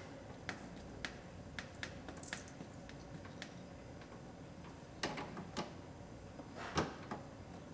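Scattered light clicks and taps from an AC refrigerant recharge can's hose and fitting being handled and connected to the truck's AC line, with a few louder knocks about five and seven seconds in.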